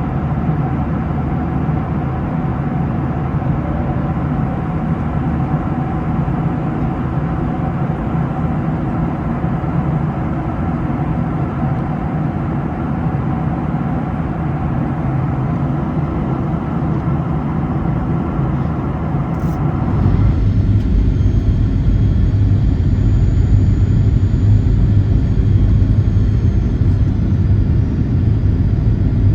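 Steady cabin noise inside a Boeing 737-800 in flight: an even rush of air with a low engine hum. About two-thirds through it changes abruptly to a louder, deeper rumble as the descent begins.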